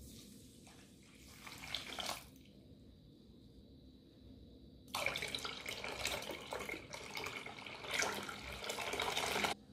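Milk pouring and splashing into a saucepan of semolina and sugar: a short pour at the start, then a louder, longer pour from about five seconds in that stops suddenly just before the end.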